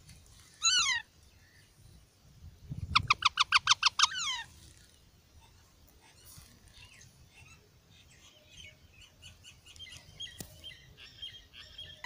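Indian ringneck parakeet calling: one short falling screech, then a couple of seconds later a fast run of about ten sharp notes that ends in a falling call, followed by faint soft chatter.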